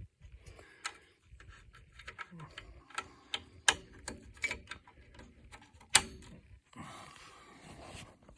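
Wiring harness plugs being handled and pushed into their sockets on a TV power supply board: irregular sharp plastic clicks and rattles, the loudest about three and a half and six seconds in.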